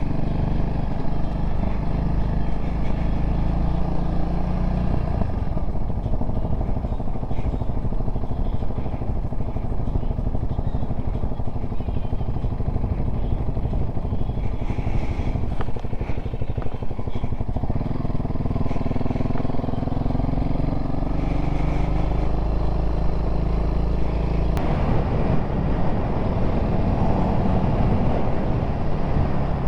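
Honda CRF300L dual-sport motorcycle's single-cylinder four-stroke engine running under way on a ride, its pitch shifting a few times as the speed changes.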